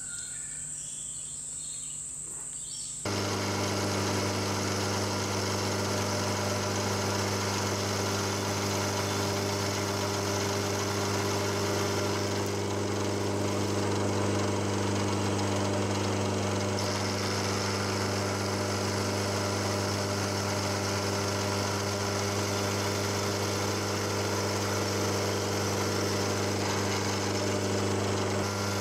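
Vertical milling machine running steadily, its end mill taking light cuts on the 10-degree bevel of a steel clamp part. The machine sound comes in suddenly about three seconds in.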